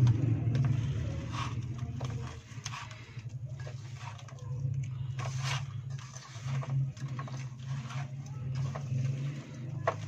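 A hand squishing and mixing raw beef chunks with spices in a steel bowl: irregular wet squelches and small clicks, over a steady low drone.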